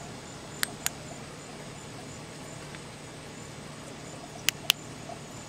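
Two pairs of short, sharp clicks, one pair about a second in and another about four and a half seconds in, typical of a flashlight's click switch being pressed while lights are swapped, over crickets chirping in the background.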